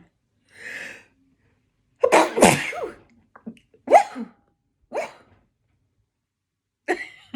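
A woman sneezing: a faint in-breath, then a loud sneeze about two seconds in, followed by three shorter bursts.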